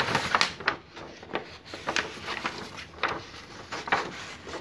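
A large sheet of paper rustling and scraping as it is handled and curled by hand into a cone, in a series of brief rustles.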